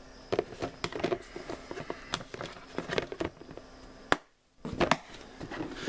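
White plastic reptile tub and its lid being handled: a string of small clicks and knocks of plastic. There is a short dead gap a little past four seconds in, then a couple of sharper knocks.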